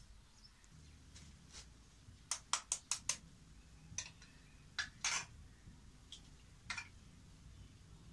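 Light clicks and taps of a spoon and an egg against small bowls. A quick run of about five comes between two and three seconds in, then scattered single taps.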